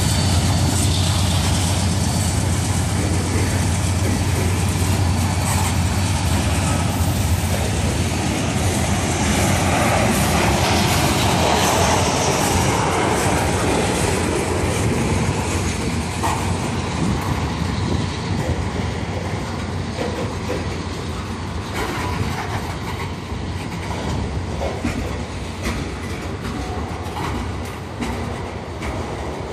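Covered hopper cars of a freight train rolling past: a steady rumble of steel wheels on rail, with scattered clicks as the wheels cross rail joints. The rumble eases somewhat in the second half.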